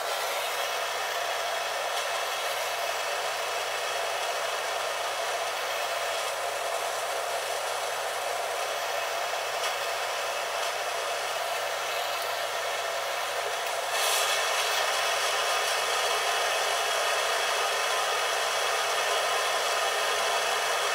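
Gas torch burning with a steady hiss, heating a transmission gear's bore to expand it for a shrink fit on a frozen shaft; it gets louder about fourteen seconds in.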